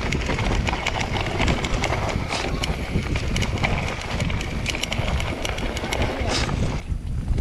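Mountain bike riding fast over a rough dirt trail: the bike rattles and clatters with many sharp clicks over bumps, mixed with wind rushing on the microphone. The rattle cuts off abruptly near the end.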